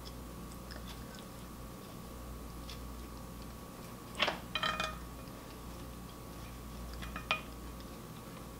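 A wooden spoon knocking against a ceramic plate while scooping omelette rice. There is a clink about four seconds in, a quick cluster of ringing clinks just after it, and one more clink near the end, over a faint steady hum.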